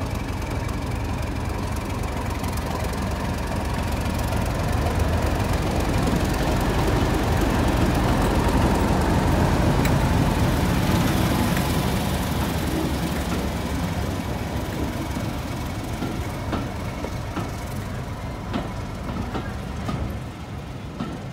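Class 31 diesel locomotive's engine running as it hauls a train past close by, growing louder to a peak about halfway and then fading. Near the end the coaches' wheels click over the rail joints.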